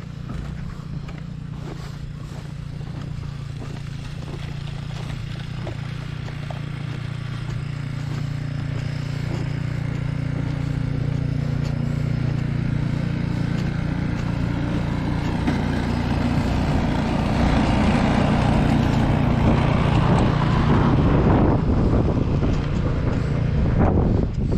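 Car engine hum and road noise heard from inside the cabin, growing steadily louder as the car speeds up.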